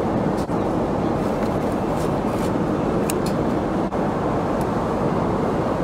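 Steady rushing cabin noise inside a Boeing 777-300ER airliner, with a few faint clicks as a seat's fold-out tray table is pulled from its armrest compartment.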